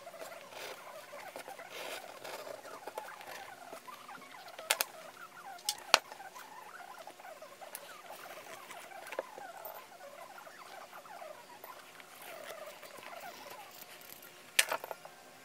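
Grooved wooden edge burnisher rubbed back and forth along the edge of a veg-tan leather sheath, making a continuous scratchy rubbing with many short squeaks. There are a few sharp knocks about five and six seconds in and again near the end.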